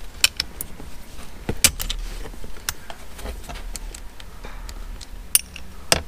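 Small metal hand tools and shifter parts clicking and clinking irregularly as the shifter is worked on in the car's centre console. The loudest click comes about a second and a half in.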